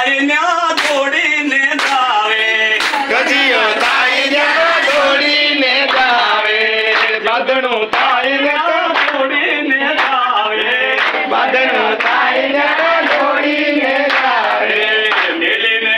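A group of men and women singing a song together, with hand claps keeping a steady rhythm.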